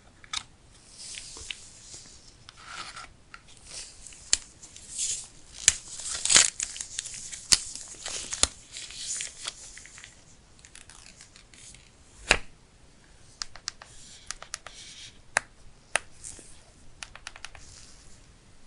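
Paper packaging of a phone box being torn and crinkled, a run of rasping tears over the first half, followed by sharp clicks, taps and short rustles of handling the box and its contents.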